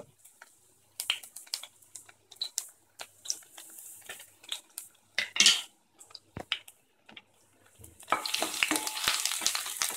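Garlic cloves frying in hot oil in a stainless steel pan: scattered small crackles and pops at first. From about eight seconds in a spatula stirs them, scraping the pan, and the sizzling becomes steady and louder.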